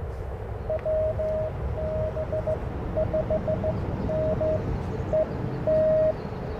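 Morse code (CW) tone from an Icom IC-705 transceiver: a single steady pitch keyed on and off in dots and dashes, ending with a long dash near the end. A low background rumble runs underneath.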